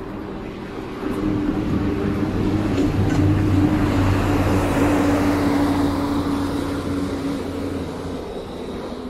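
A large motor vehicle passing close by: a steady low engine drone that swells from about a second in and fades away near the end.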